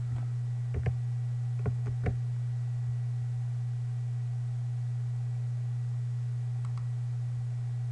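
Steady low hum with no speech, and three faint clicks in the first couple of seconds.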